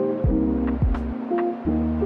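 Background music: held chords over a beat with deep, falling bass drum hits and light clicking percussion.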